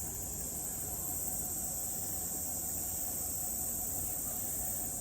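Steady, high-pitched chorus of insects buzzing without a break, over a low, even hiss.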